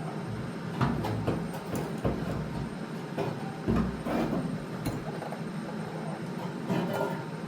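Scattered metal knocks, clicks and rattles with a few low thuds, from a fuel tank and its pump assembly being handled and fitted.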